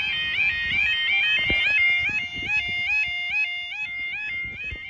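UK level crossing yodalarms sounding: several electronic warning alarms, out of step with each other, each jumping back and forth between a higher and a lower pitch, with a lower-pitched unit alongside. It is the crossing's audible warning that the barriers are closing for a train.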